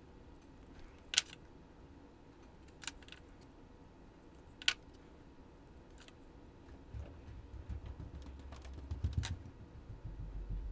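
Small metal parts and needle-nose pliers clicking as a replacement brush spring is fitted to a Lionel locomotive motor's brush plate by hand: four sharp clicks a second or two apart, with a low rubbing and handling rumble from about two-thirds of the way in.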